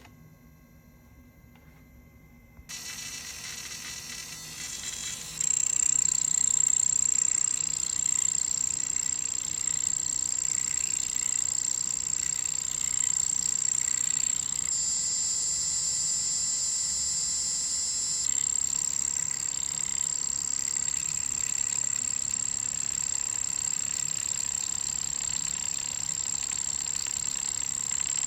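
Bambu A1 mini 3D printer making a loud, steady high-pitched whine over a hiss. It comes on in two steps, a hiss about three seconds in and then the whine a couple of seconds later, and its tone shifts for a few seconds midway. This is the abnormal noise the printer makes while it fails to print; the cause is unknown to the owner.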